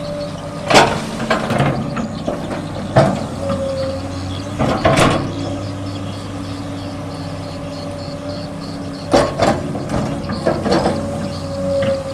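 An excavator's engine runs steadily throughout, with a handful of loud metallic clanks and knocks from the machine working: about a second in, around three and five seconds, and a cluster near the end.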